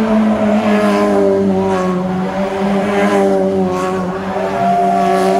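Rally car engine held at high revs in a steady note while the car spins donuts, its tyres spinning and smoking on the tarmac.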